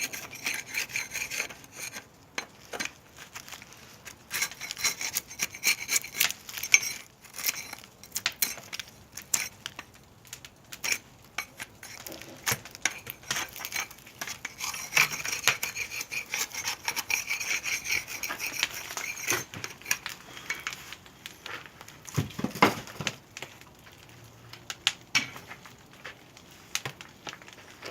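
Firewood being handled: wood scraping and rubbing in stretches, with many sharp knocks and light clinks and one heavier knock near the end.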